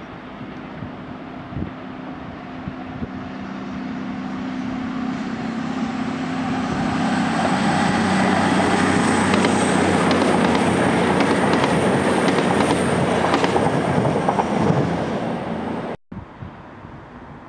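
A CrossCountry Voyager diesel train passes along the tracks. Its engines drone steadily and grow louder over several seconds as it nears, then give way to a loud rumble with a run of clicks from the wheels at its closest. Near the end the sound cuts off abruptly to a much quieter background.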